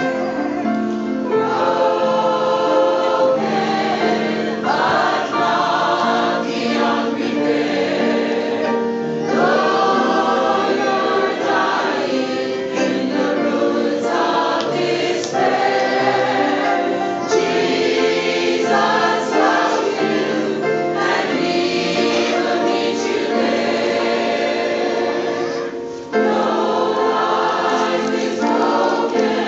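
A large combined choir singing a gospel song in sustained harmony, with a brief dip near the end before the full choir comes back in.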